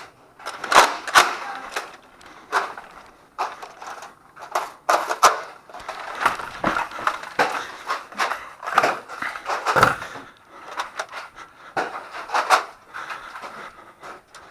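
Irregular clicks, knocks and clatter at an uneven pace, with rustling in between, from a player on the move handling a Nerf blaster.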